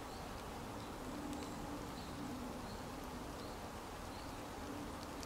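A flying insect buzzing in a low hum that comes and goes, over a faint outdoor hiss.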